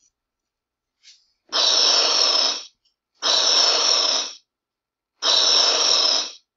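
A person blowing up a balloon by mouth: three long breaths out into it, each about a second long, with short pauses between.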